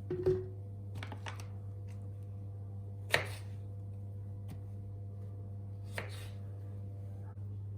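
A few sharp knocks or taps, the loudest shortly after the start and about three seconds in, over a steady low hum.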